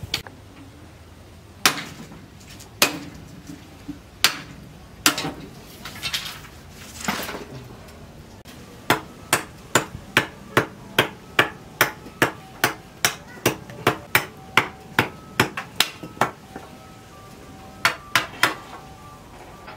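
A knife blade chopping into a green bamboo pole laid across a wooden block, each stroke a sharp knock. Spaced single chops come at first, then a steady run of about two chops a second, and a last quick three.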